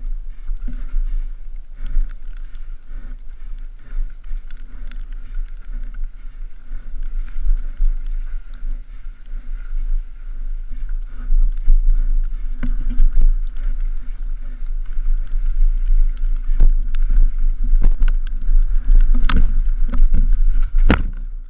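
Wind buffeting a helmet-mounted camera's microphone while a mountain bike rides over rough ground, with a steady heavy rumble and frequent knocks and rattles from the bike. The sharpest knocks come in the last few seconds.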